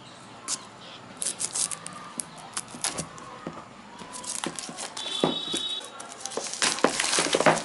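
Plastic shrink wrap on a phone box being crinkled and torn off by hand: irregular crackles and crinkles, busiest near the end, with a brief high squeak about five seconds in.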